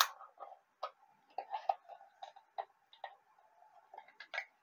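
Irregular light clicks and taps as hands handle thin aluminium sardine cans and pull a tie string snug around them, the sharpest click right at the start.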